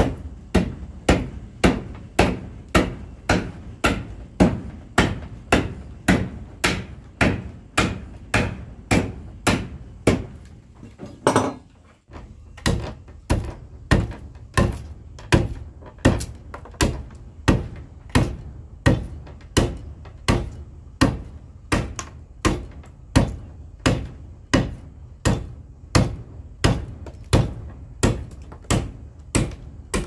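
A hammer striking repeatedly at a steady pace of about two blows a second, with a short break about twelve seconds in.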